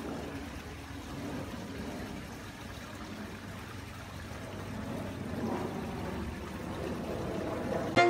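Backyard garden waterfall running, water splashing and trickling steadily into the pond.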